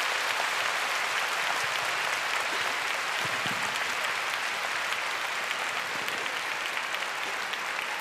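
A large arena crowd applauding steadily, many hands clapping together in a dense, even patter.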